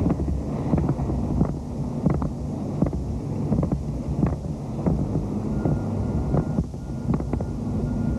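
Wind rumbling on a camcorder microphone, a steady low rumble with irregular short knocks throughout.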